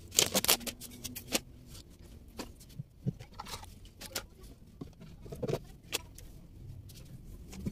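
Small objects being handled and set down in a cabinet: scattered clicks and light knocks, with soft rustling of clothes and plastic. The loudest cluster of knocks comes right at the start.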